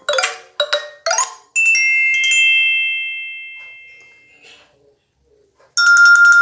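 Microsoft Lumia 535 ringtones playing: a quick run of short notes ends about a second and a half in on a ringing chord that fades away over about three seconds. After a brief silence, the next ringtone starts near the end with a bright, sustained chime.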